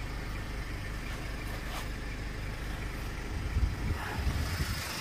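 Steady low rumble inside a parked vehicle's cabin. About three seconds in, uneven gusty rumbling and faint knocks from the phone being handled and the bowls picked up.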